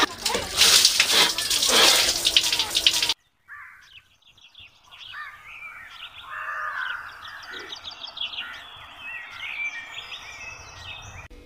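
A loud, hissing rush of noise cuts off abruptly about three seconds in. After a moment of silence, small birds chirp and twitter softly, with many short, quick calls.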